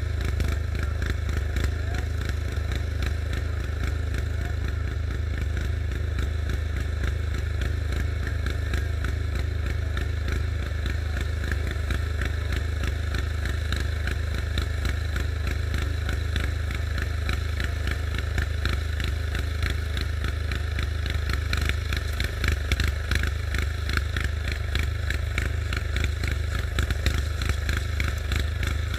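Walk-behind snowblower's engine running steadily under load as it clears snow.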